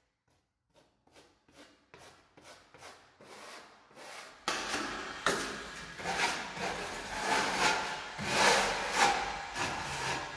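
Metal spatula scraping wet decorative paint across a wall in quick repeated strokes, blending the colours. Faint at first, then louder and denser from about four seconds in.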